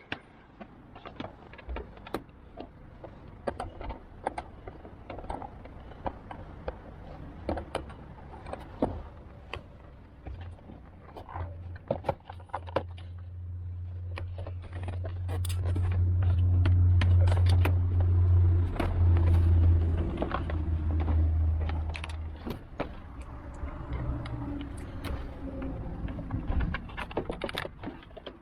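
Repeated small metallic clicks, clinks and scrapes of hand tools and lock parts being worked inside a car door. A steady low hum swells up about halfway through, is loudest for several seconds, and then fades back down.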